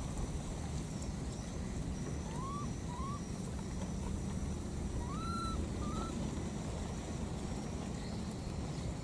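Four short, rising whistle-like animal calls, two close together a few seconds in and two more a couple of seconds later, over a steady low rumble and a thin high steady tone.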